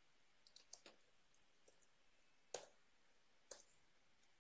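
A few faint, scattered clicks of a computer mouse and keyboard, the loudest about two and a half seconds in, over near-silent room tone.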